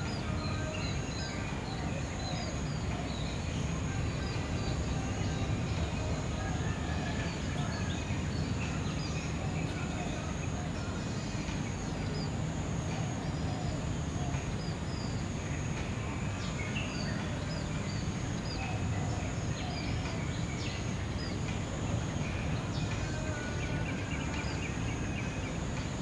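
Many small birds chirping and twittering in a morning chorus, short high calls repeating throughout, over a steady low rumble and a thin steady high tone.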